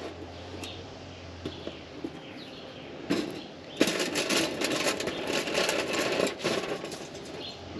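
Aluminium foil crinkling and crackling as a hand rubs olive oil over a foil tray. It starts about three seconds in and lasts a couple of seconds, with a few small crackles after.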